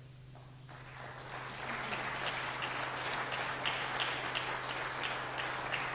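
Audience applauding. It starts a little under a second in and swells quickly to full applause, with single sharper claps standing out. A steady low electrical hum runs underneath.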